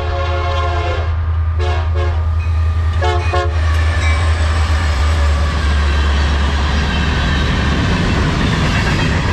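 Freight train passing close by, led by Union Pacific diesel locomotives: the air horn holds a chord until about a second in, then gives two short bursts of quick toots. The locomotives' diesel engines rumble heavily past, and toward the end the rolling noise of the hopper cars takes over.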